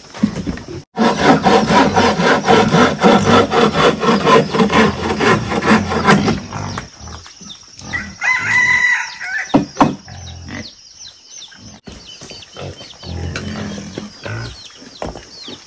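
Chickens calling: a loud, rapid run of clucking, about five clucks a second, lasting some five seconds, then a shorter call about eight seconds in and fainter scattered clucks after it.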